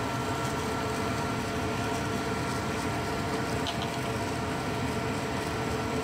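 Gas furnace running steadily: an even motor hum with a faint steady whine. Two faint ticks a little past halfway.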